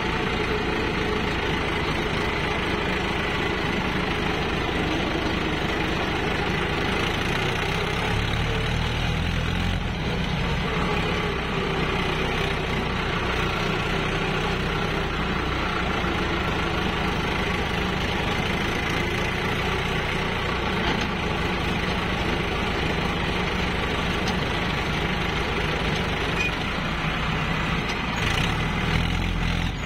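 Farm tractor's diesel engine running steadily at low speed, heard from the driver's seat close to its exhaust stack.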